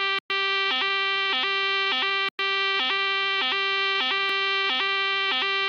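Fire alarm sound effect: a loud, steady buzzing tone that pulses with short dips about every two-thirds of a second. The sound cuts out completely for an instant twice, once just after the start and again a little past two seconds in.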